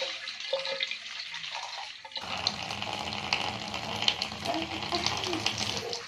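Water running from a tap into a bathtub, with water scooped up in a plastic dipper and poured over the head to rinse the hair. The splashing grows fuller about two seconds in.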